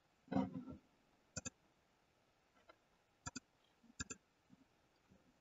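Computer mouse clicks, coming in quick pairs three times, with a short soft noise near the start.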